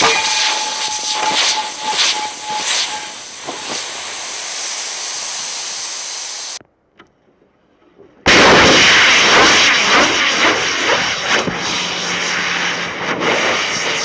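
Small rocket motors firing: a loud rushing hiss of exhaust with a steady whistling tone over it for the first three seconds. It cuts off abruptly about six and a half seconds in, and after a second and a half of near silence a second firing starts suddenly, just as loud.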